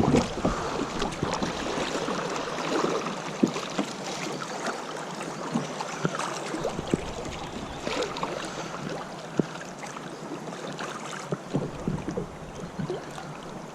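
Flowing river water splashing and lapping around a kayak on the move, with scattered small splashes and knocks against the hull.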